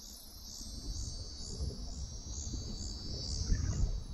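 Insects shrilling from the riverbank in a steady high-pitched chorus that swells about twice a second. Under it run uneven low rumbles and thumps, loudest about three and a half seconds in.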